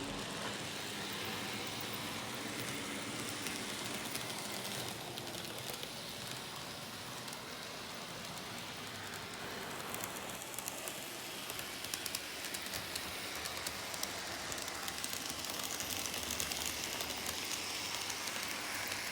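N-scale TOMIX KiHa 25 model railcar running on track: a steady hiss from the small motor and wheels, with scattered light clicks from the wheels over rail joints, thickest about halfway through.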